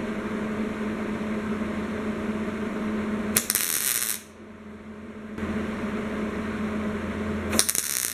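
MIG welder tacking a sheet-steel patch into a garden tractor hood: two short bursts of arc crackle, about three and a half seconds in and again near the end. Between the bursts there is a steady machine hum.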